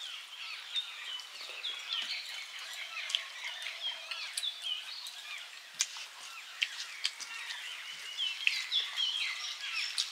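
Outdoor birdsong: many small birds chirping in quick, short, pitch-sliding calls without a break. Scattered sharp clicks are heard over it, the loudest about three, six and eight and a half seconds in.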